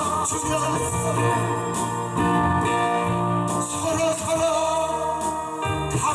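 Two guitars playing a gospel hymn melody together, notes held and sustained.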